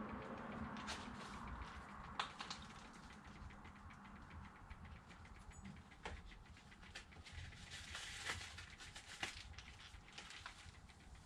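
Faint scattered clicks and taps from hand tools working on a brake caliper and its brake-line banjo fitting, with the sharpest knocks about two seconds in and again in the second half.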